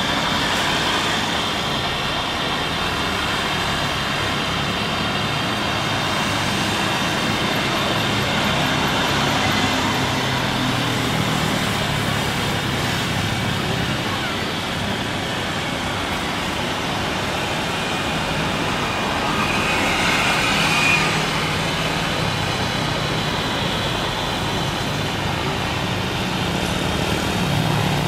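Steady jet engine noise of a SriLankan Airlines Airbus A330 on final approach, with a faint high engine whine, blended with road traffic noise. The noise swells briefly about two-thirds of the way through.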